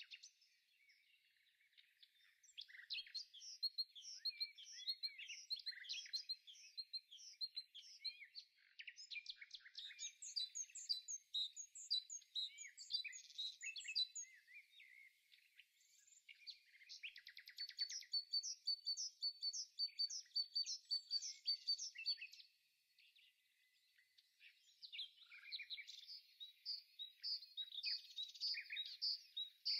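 Small birds chirping and twittering in quick, high notes and short trills, with two brief lulls.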